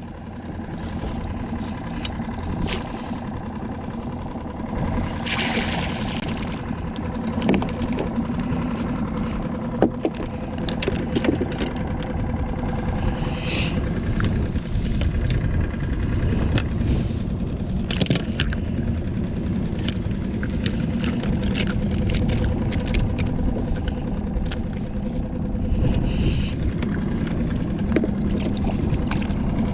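A small skiff's motor idling steadily at low speed, with scattered clicks and knocks from handling tackle on the boat.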